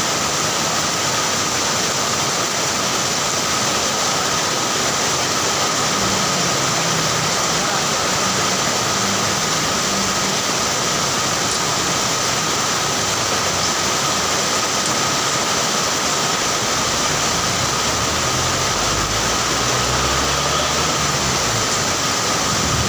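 Heavy rain pouring down steadily, a dense even hiss, with a low rumble rising under it near the end.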